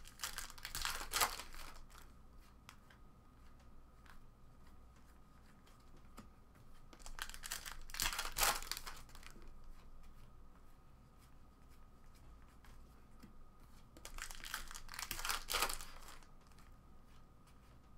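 Foil trading-card pack wrappers being torn open and crumpled, in three crinkling bursts spaced about seven seconds apart, with quieter handling of the cards in between.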